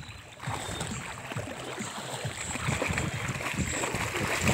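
Water churning and sloshing as people wade and swim in shallow water: an irregular low wash with small splashes, slowly growing louder.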